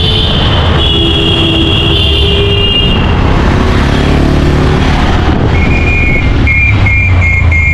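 Motor vehicle running with a steady low rumble. High steady tones sound over it at the start, and a rapid high beeping comes in the last two seconds.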